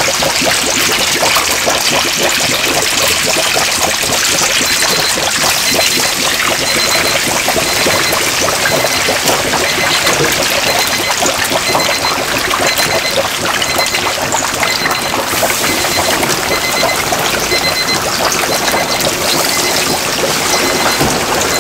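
Battered whole chickens deep-frying in hot oil: a steady, dense crackling sizzle.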